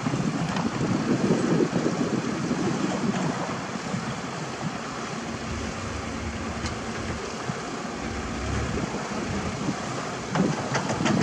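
Isuzu Elf dump truck's diesel engine running as the truck crawls over rough gravel ground, with wind buffeting the microphone. A few short knocks sound near the end.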